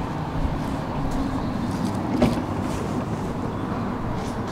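Moderus low-floor tram at a stop with its doors open: a steady hum and hiss from the tram, with a single clunk about halfway through.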